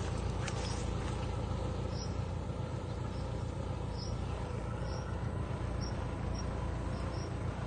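Small farm tractor's engine running steadily as it hauls a load of harvested coconuts along a dirt track, with short high chirps now and then.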